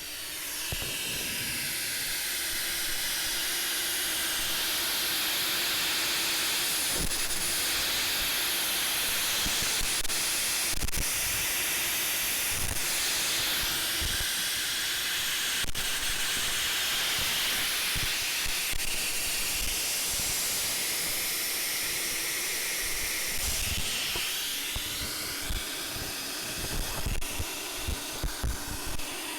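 Loud, steady hiss of gas escaping from a car's exhaust system, picked up by a microphone held close while hunting for an exhaust leak, with scattered low thumps and a few clicks. It starts about a second in and eases a little near the end.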